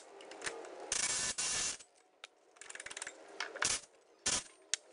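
A cordless power ratchet runs in short bursts while backing out the bolts at the driveshaft's front joint. The longest run comes about a second in, with two shorter ones near the end and sharp metal clicks of socket and tool between them.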